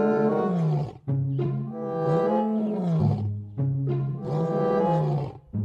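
Lion roaring: three long calls, each rising and then falling in pitch.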